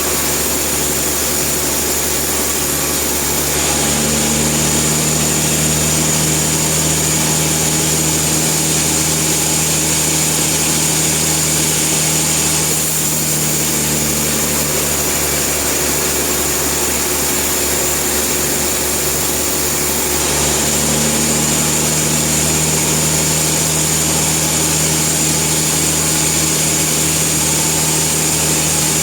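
Sawmill running: a steady engine hum with a high, even whine, which grows louder twice for long stretches of several seconds.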